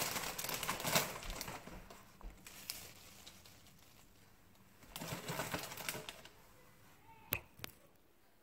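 Curly kale leaves rustling and crackling as handfuls are picked up and dropped onto a chopping board, in two short spells, with a single sharp click about seven seconds in.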